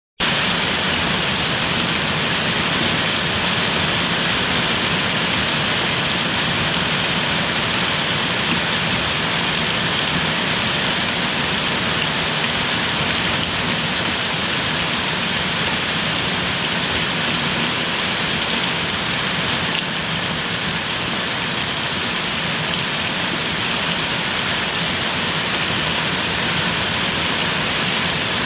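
Steady rain falling and pattering on surfaces, a constant even hiss with no breaks.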